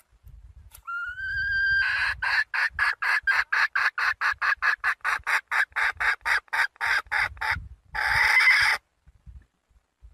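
Young red junglefowl hen calling a cock: one rising, drawn-out note, then a fast, even run of clucks at about five a second, ending in one longer, harsher squawk.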